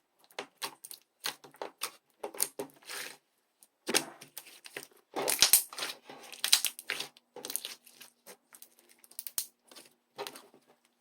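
Irregular crisp crackling and crunching, short sharp noises coming in quick uneven clusters with brief pauses.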